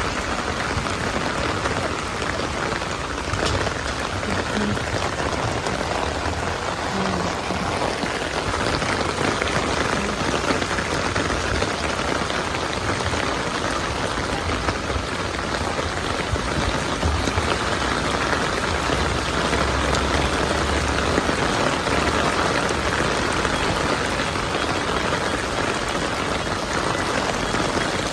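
Steady rain falling and pattering on surfaces, with a faint low rumble of traffic at times.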